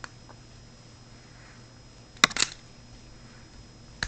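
Small hard parts being handled on a workbench: a click, then a quick cluster of loud sharp clicks and knocks about two seconds in, and another click near the end, over a faint steady hum.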